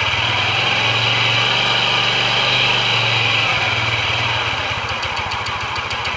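Kawasaki Curve scooter engine running with its side casing open and the starter bendix gear exposed. For the first three seconds or so it runs a little faster and smoother, then settles back into a rapid, even idle.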